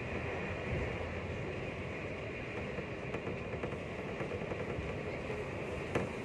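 Passenger train running at speed, heard from inside the carriage as a steady rumble and hiss. A single sharp click comes near the end.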